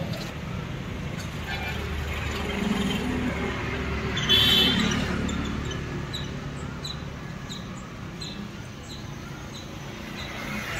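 Street traffic running steadily, with a brief louder sound about four seconds in and a run of short high ticks, about two a second, later on.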